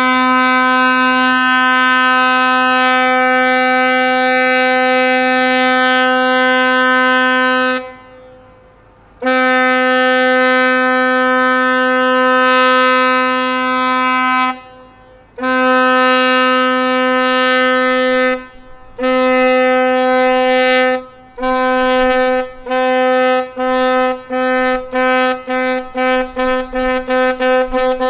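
Ship's horn of the river cruise ship Mustai Karim sounding a farewell series of blasts, one steady horn tone. It opens with several long blasts, then gives ever shorter blasts coming faster and faster toward the end.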